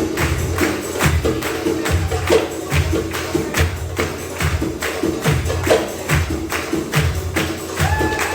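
Darbuka (goblet drum) solo rhythm, with deep doum strokes about twice a second under quick, sharp tek strokes. A brief held tone sounds near the end.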